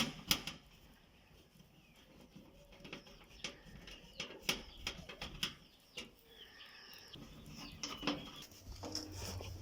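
Screws being driven back into a washing machine's cover with a screwdriver: scattered light metallic clicks and taps at an irregular pace.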